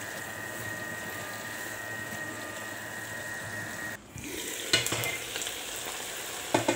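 Beef in a thick sauce sizzling in a nonstick frying pan as a spatula stirs it, over a steady faint whine. About four seconds in the sound cuts, and a few sharp knocks and scrapes of a utensil against the cookware follow.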